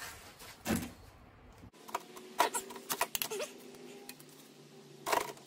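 Click-type torque wrench working the cylinder-head bolts of a Ford Ranger OHV engine: sharp single clicks and light metallic knocks, several in quick succession about two to three seconds in and one more near the end. Each click is the wrench breaking over as a head bolt reaches the set torque of 70 on the final pass.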